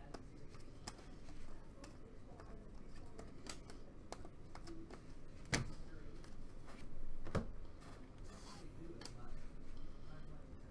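Glossy Donruss Optic football cards being flipped through and slid off a stack by hand: irregular sharp snaps of card edges with light rustling, the loudest snaps about five and a half seconds in and again near seven and a half.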